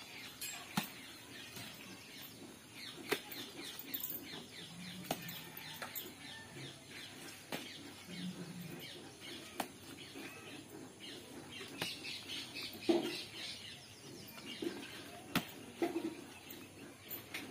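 Garden greens being picked by hand: foliage rustling, with a sharp snap of a stem breaking about every two seconds. Birds chirp throughout.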